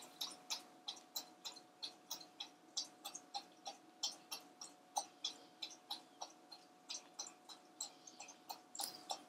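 A pet drinking water from a bowl, lapping in a quick, even rhythm of about three to four laps a second.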